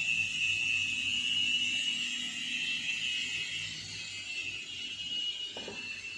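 Multi-blade circular saw machine ripping wood: the blades give a steady high-pitched whine with a hiss of cutting, over a low motor hum that fades about three seconds in. A short knock sounds near the end.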